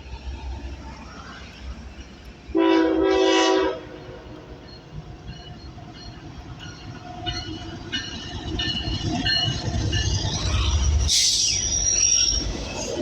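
ES44AC diesel locomotive's air horn sounds one blast of about a second, a few seconds in. The locomotive's diesel engine then grows louder as it comes close, with high wheel squeal and rail noise from the passing train.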